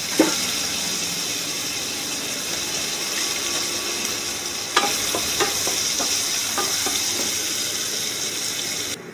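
Sliced onions, garlic and curry leaves sizzling steadily in hot oil in a stainless steel kadai. A wooden spatula stirring them gives a few sharp clicks against the pan, mostly about five to seven seconds in.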